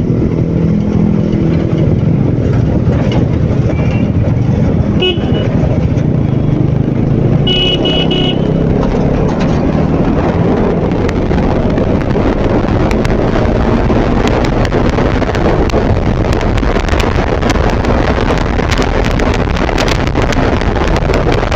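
Sport motorcycle engine running under the rider while moving through traffic, with wind rushing over the microphone, heavier in the second half. Vehicle horns toot briefly about four and five seconds in, and a louder run of short beeps comes near eight seconds.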